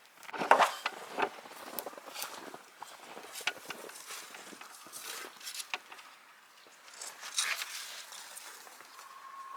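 Footsteps crunching in snow: irregular crunches and scuffs, the loudest about half a second in.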